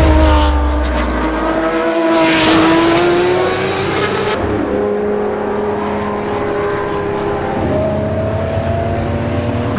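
Historic touring race car engines at high revs, their note climbing as they accelerate, with a louder rush about two seconds in as a car goes by. About four seconds in the sound changes to a steadier engine note, and another car's note climbs near the end.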